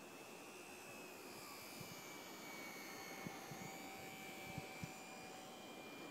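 Faint high whine of a HobbyZone Super Cub RC plane's electric motor and propeller in flight, its pitch wavering slightly, with a few soft low thumps.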